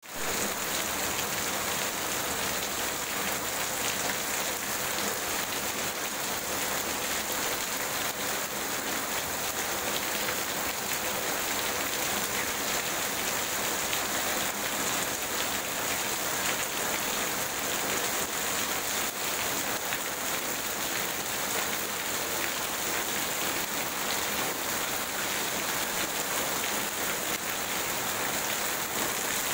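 Heavy rain falling steadily, a dense even hiss, with runoff streaming off the roof eaves.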